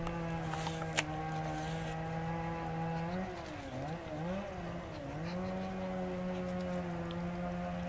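An engine running steadily at one pitch, which dips and rises a few times between about three and five seconds in before settling again. A single sharp click about a second in.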